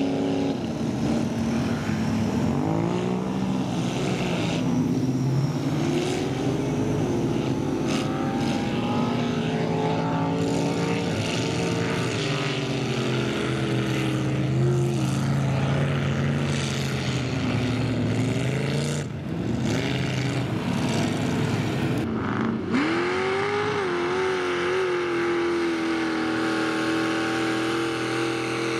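Big-engined lifted mud trucks revving hard under load, the pitch repeatedly climbing and falling as they are driven through mud. Near the end a fresh engine revs up sharply and holds high.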